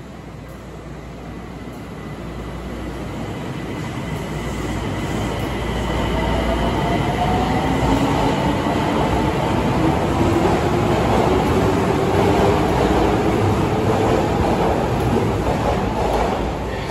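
Osaka Metro 30000 series subway train pulling out and accelerating past along the platform. Its inverter-driven traction motors whine in slowly rising tones over the rumble of wheels on the rails, growing louder as the cars go by.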